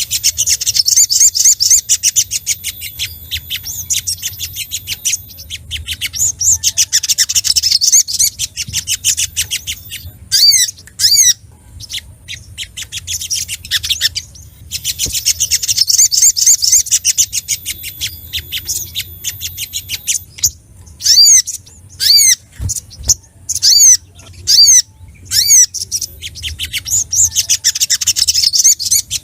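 A sogok ontong (spiderhunter) singing excitedly. Long runs of fast, high chattering trills alternate with loud separate sharp chip calls that fall away at the end.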